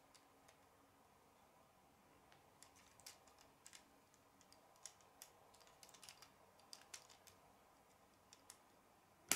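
Faint, irregular clicks of K'nex plastic rods and connectors being handled and snapped together, with one louder click near the end.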